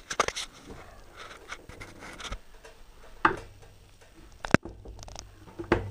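A heavy Singer 111W153 walking-foot sewing machine head being tipped back by hand to expose its underside: a series of knocks and clunks, with a sharp click about four and a half seconds in. A faint low hum starts about halfway through.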